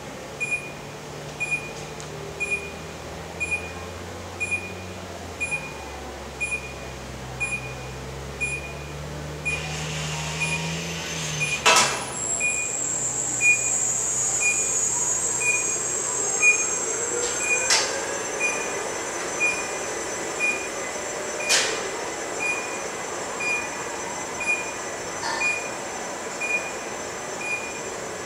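Automated greenhouse bench-transport machinery running: a warning beeper sounding steadily, somewhat faster than once a second, over the hum of electric drive motors that shifts in pitch during the first half. Later come a few sharp metal clunks and a high metallic whine with gliding tones.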